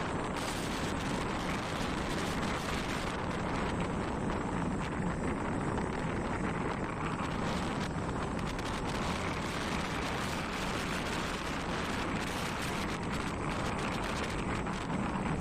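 Steady road noise of a vehicle travelling along a road, with wind rushing over the microphone.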